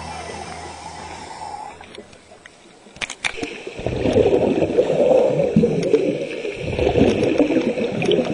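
Scuba diver exhaling through a regulator underwater: exhaust bubbles gurgling and churning, muffled, in two long bursts starting about four seconds in, preceded by a few sharp clicks.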